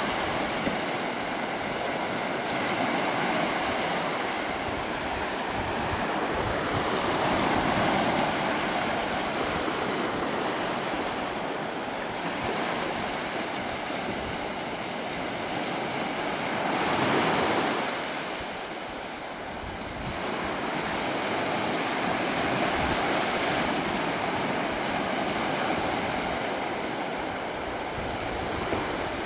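Ocean surf washing on the shore, a steady rush that swells about eight seconds in and again around seventeen seconds.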